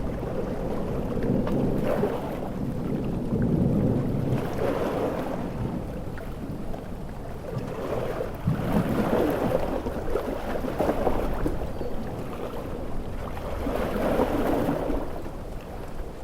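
Heavy ocean surf: waves surging and breaking in loud swells every few seconds, a deep wash of water with no let-up between them.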